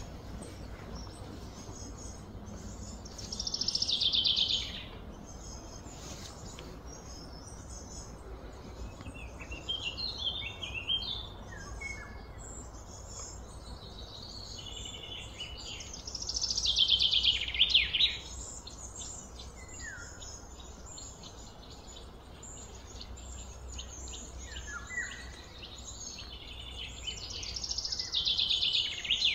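Birds singing: a loud, falling trilled phrase of about two seconds comes three times, roughly every twelve seconds, with shorter chirps and whistled slides between, over a faint steady low hum.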